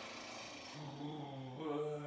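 A man's long, audible out-breath: breathy at first, then turning into a low, steady voiced sigh held on one note from about three-quarters of a second in. It is a deliberate sigh made to release stress.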